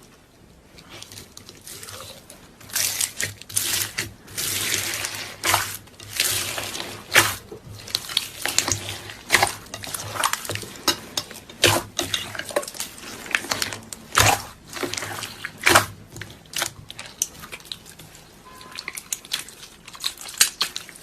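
Slime being squeezed and worked by hand: irregular wet squelches and sticky pops, some of them sharp and loud, coming thick and fast.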